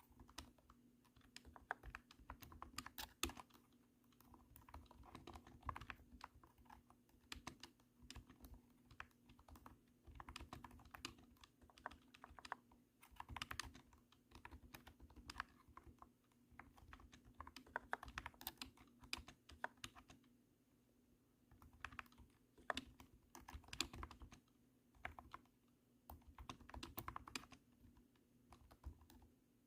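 Thunky typing on a cat-shaped computer keyboard: keystrokes clacking in quick runs broken by short pauses.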